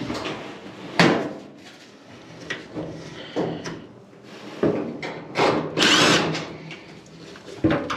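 Power drill driving screws into a clothes dryer's panel in several short bursts, the longest about six seconds in.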